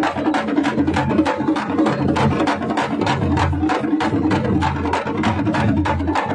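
A troupe of parai frame drums beaten hard and fast in thappattam style, a steady driving rhythm of several sharp strokes a second with a low boom underneath.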